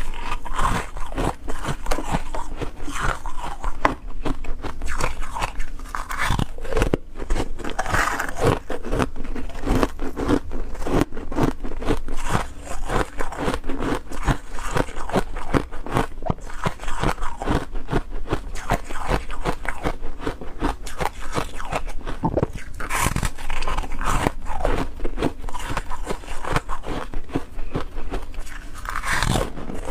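Ice being bitten and chewed: a continuous run of dense, irregular crunches.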